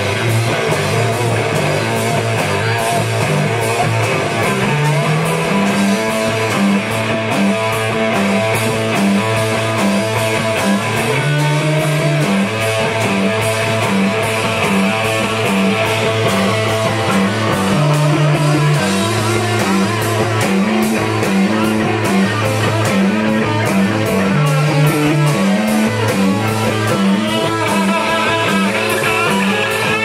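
Live rock band playing loudly: electric guitar over a repeating, stepping bass line and a drum kit.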